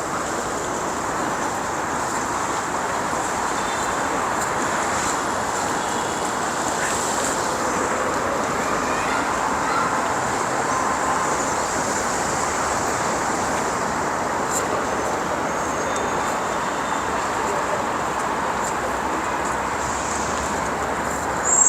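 Steady outdoor ambience: a constant, even rush of noise with no single event standing out.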